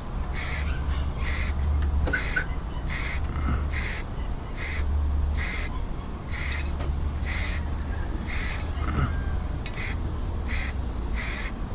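Evenly repeated hissing strokes, about three every two seconds, over a steady low hum.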